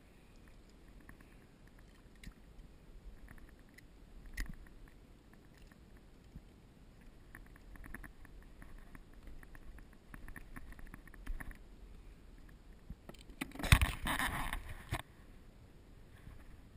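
Water splashing and lapping softly around a small shark held in the sea beside a kayak, with faint scattered drips and taps. Near the end comes one loud splash lasting about a second and a half.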